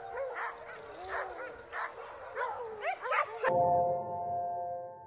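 Sled dogs yipping and barking in a ragged chorus over held background music notes. The dogs cut off suddenly about three and a half seconds in, leaving a sustained music chord that fades away.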